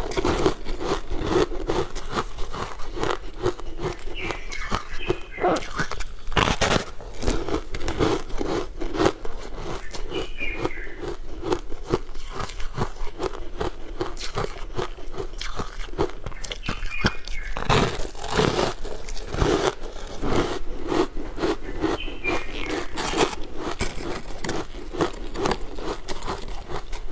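Crisp crunching bites and chewing of frost-covered frozen food, close on a clip-on microphone, with several louder bites along the way.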